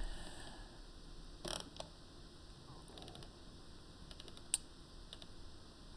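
A few scattered soft clicks and taps from operating a computer keyboard and mouse. The sharpest comes about four and a half seconds in, over quiet room tone.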